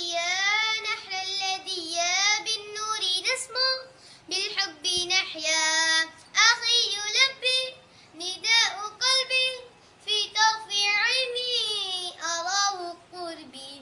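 A young girl singing an Arabic nasheed solo and unaccompanied, in phrases with short breaks between them.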